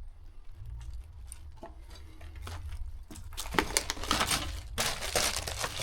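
Crinkling and crunching of rubbish and debris being disturbed, sparse at first and becoming dense and busy from about halfway through, over a low steady rumble.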